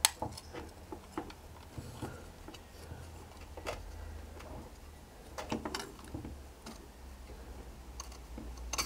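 Light, scattered metal clicks and small knocks as the ash pan and grate are worked loose and slid out from underneath a small coal-fired model locomotive, over a low steady hum; a sharper clink comes near the end.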